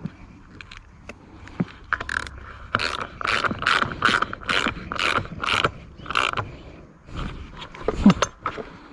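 Homelite leaf blower's recoil pull starter being worked by hand, its pulley and pawls ratcheting in a run of about eight quick strokes, then a few knocks near the end.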